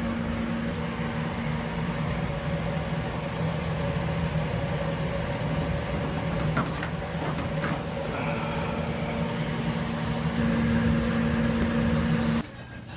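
Steady mechanical hum of a running machine, holding a few constant low pitches, with a few faint clicks in the middle; it cuts off abruptly near the end.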